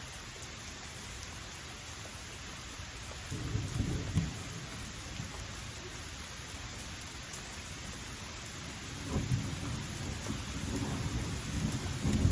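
Steady rain hiss with thunder: a low rumble about three seconds in, another about nine seconds in, and a much louder roll of thunder starting near the end.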